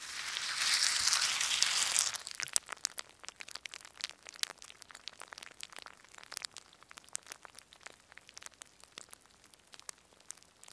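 A burst of static hiss lasting about two seconds, then faint, irregular crackling clicks, from the glitch transition and end screen of the outro.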